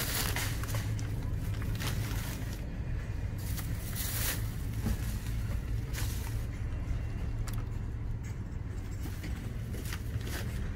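Plastic grocery bags rustling and crinkling in short bursts as they are moved around a car's cargo area, over a steady low rumble.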